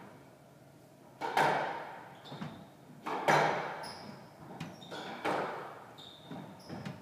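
Squash rally: sharp smacks of the ball off rackets and walls, the loudest about every two seconds, each echoing in the enclosed court, with short high squeaks of shoes on the wooden floor between them.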